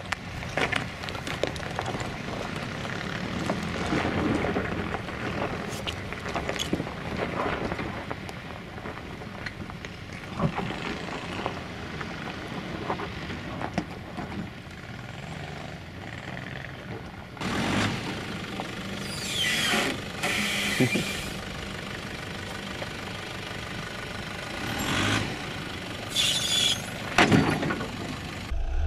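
Nissan Patrol off-roader's engine running at low revs as the vehicle crawls slowly down a rocky track. Louder stretches of rushing noise come about two-thirds of the way through and again near the end.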